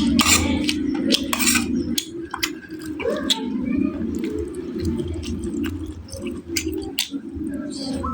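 Close-up eating sounds: chewing with many sharp clicks and clinks, as of cutlery on a plate.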